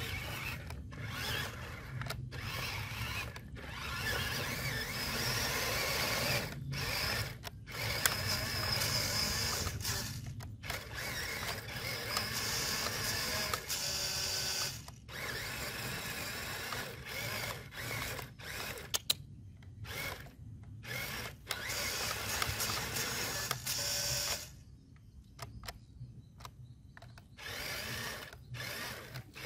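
Small electric drive motor and gearbox of a radio-controlled Scania log truck whining in repeated bursts, stopping and starting many times as the stuck truck's wheels spin in mud.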